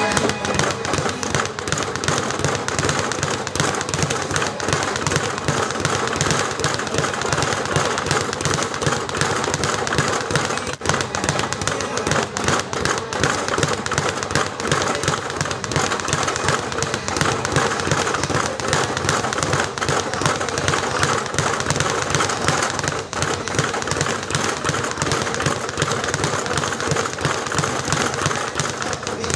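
Leather speed bag being punched in a fast, continuous rhythm, rattling rapidly against its wooden rebound board.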